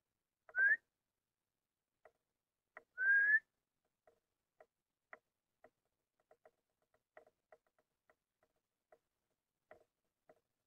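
A person whistling twice, two short rising whistles, the second a little longer, followed by faint scattered ticks.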